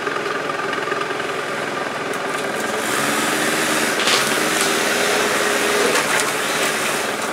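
Quad (ATV) engine running steadily at low speed as it rolls along a rough dirt trail, getting slightly louder about three seconds in.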